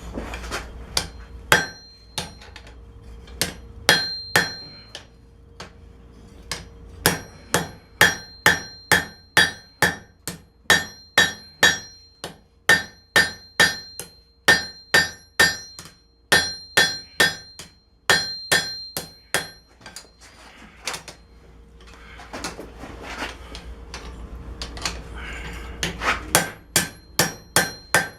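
Hand hammer striking hot steel on an anvil in long runs of about two blows a second, each blow ringing. The steel is an old wrench being drawn out into a knife blade.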